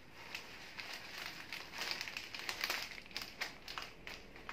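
Tissue paper and wrapping paper crinkling and rustling as hands squeeze and gather it tightly around a bouquet's stems, in quick irregular crackles that are loudest about halfway through.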